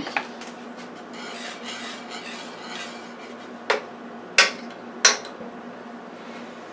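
Wire whisk stirring cheese sauce in a metal skillet, a soft scraping, then three sharp clinks of metal on the pan a little under a second apart.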